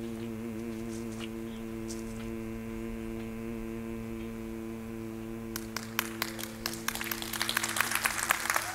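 Singing bowl ringing with a few steady tones that waver slowly as they die away. Scattered clapping starts about five and a half seconds in and builds into applause.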